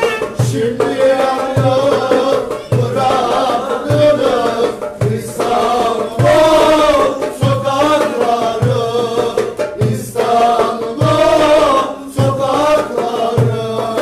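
Live Turkish folk dance music: a violin playing a winding melody over a steady low beat on a darbuka (goblet drum), a stroke about every 0.6 seconds.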